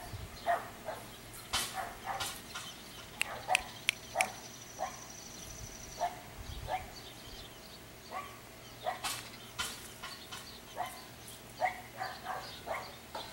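English bulldog puppy giving a string of short, irregular yips and barks.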